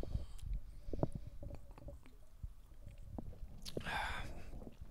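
Quiet sipping and swallowing of a soda, with small mouth and glass clicks and a short breathy sound about four seconds in.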